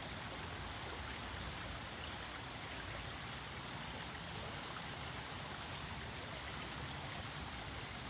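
Steady, even rushing noise that holds at one level throughout, with no gusts or breaks.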